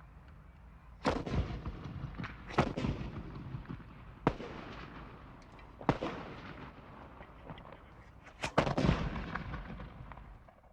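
Rifle shots at a firing range: six sharp reports, roughly one every one and a half seconds, the last two in quick succession. Each is followed by a long rolling echo.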